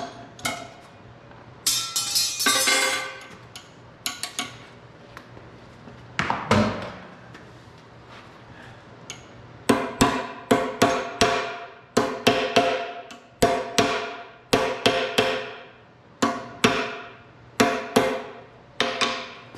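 Ball-peen hammer striking a thin steel rod on the anvil of a heavy bench vise: from about ten seconds in, a run of sharp, ringing metal blows, about two a second in short groups. Earlier there is a brief clattering rattle and a single thump.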